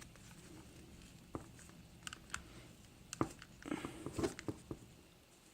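Faint scattered clicks and rustles of a replacement ear pad being stretched and worked around the rim of an AKG K81DJ headphone ear cup, with a busier patch of handling sounds about four seconds in.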